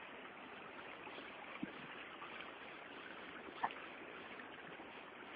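Faint, steady outdoor background hiss with two soft clicks, about one and a half seconds and three and a half seconds in.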